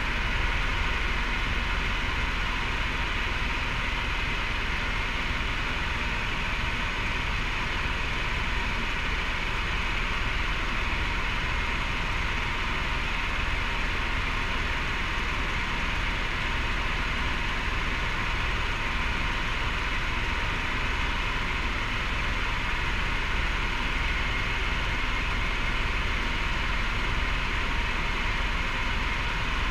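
Helicopter in steady flight heard from inside the cabin: a constant engine and rotor drone under a strong, even hiss.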